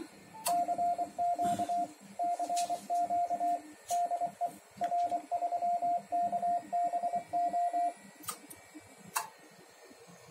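Morse code sent as CW: the Yaesu transceiver's sidetone, one steady beep keyed on and off in dots and dashes for about seven seconds, while the linear amplifier transmits into a dummy load. A couple of sharp clicks follow near the end.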